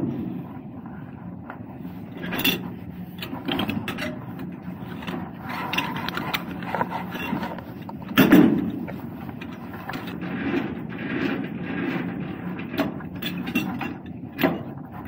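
Semi truck's diesel engine idling steadily, with scattered metal clunks, knocks and scraping from work between tractor and trailer while the trailer is being dropped. The loudest knock comes about eight seconds in.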